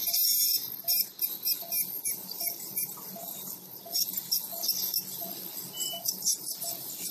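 Ultrasonic dental scaler working along a dog's teeth, its water spray hissing and crackling as it takes off tartar. Under it, a faint short beep repeats about every three-quarters of a second.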